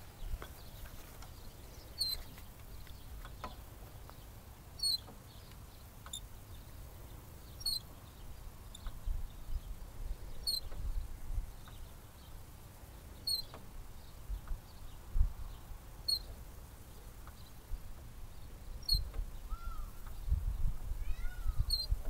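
Playground swing squeaking as it sways, one short high squeak about every three seconds in time with its swing.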